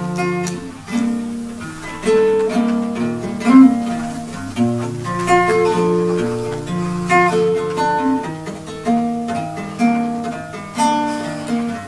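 Acoustic guitar being played: picked notes and chords, each ringing out and fading before the next.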